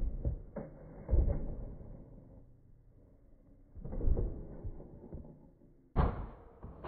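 A handful of dull knocks and thumps a few seconds apart, the loudest about a second in, about four seconds in and near the end.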